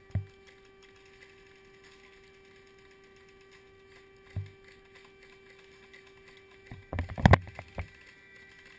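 A short burst of airsoft gunfire with a rapid mechanical clatter about seven seconds in, among a few dull thumps of movement, over a faint steady hum.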